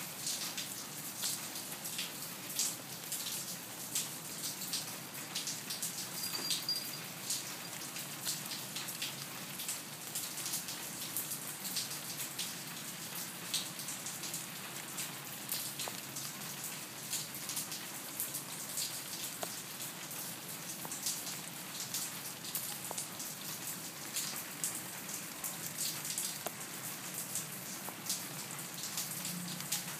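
Steady rain, with many drops pattering densely and evenly.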